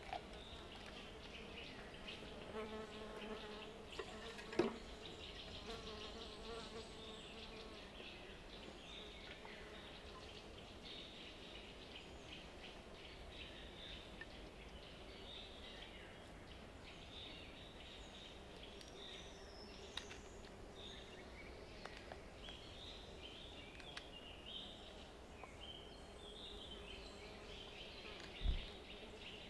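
A flying insect buzzing, loudest during the first several seconds, then fainter, over birds chirping. A few soft knocks, the sharpest near the end.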